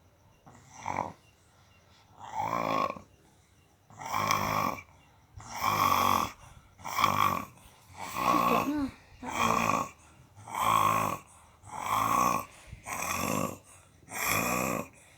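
A child snoring heavily and rhythmically, one loud rasping snore about every second and a half, coming a little faster after the first few, one of them with a brief whistling note. The uploader puts the snoring down to the child's tonsils.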